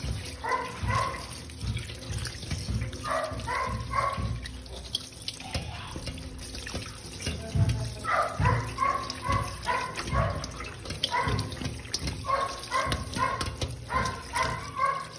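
Tap water running over raw beef chunks in a metal colander while hands rub and turn the meat. Throughout, runs of two to five short, high calls repeat, louder than the water.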